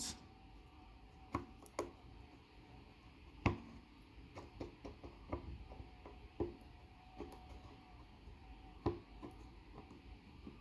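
Faint, irregular clicks and taps of hands working over a Seagate laptop hard drive's casing, probing the label for a hidden screw; the sharpest tap comes about three and a half seconds in.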